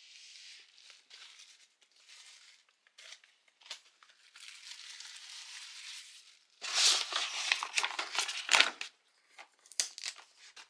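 Bubble wrap and packaging being handled and unwrapped by hand, crinkling and rustling: soft at first, louder crinkling from about six and a half seconds in, and a few sharp clicks near the end.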